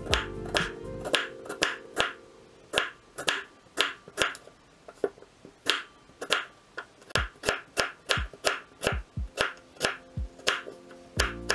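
Chef's knife slicing peeled chestnuts thinly on a wooden cutting board: a run of sharp, uneven knife taps on the board, about two a second.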